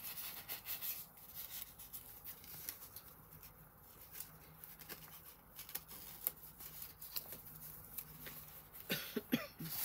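Paper rustling and scraping as the pages, tags and paper pockets of a handmade junk journal are handled and turned, with a louder flurry of handling near the end.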